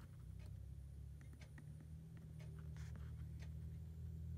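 Faint small clicks and taps of metal pliers on a power-button switch's solder tab and wire while the old jumper wire is desoldered, over a low steady hum.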